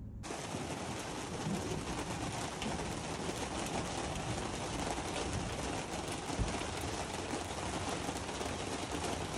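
Steady rain falling: an even hiss with faint scattered drop ticks, and a single low thump about six and a half seconds in.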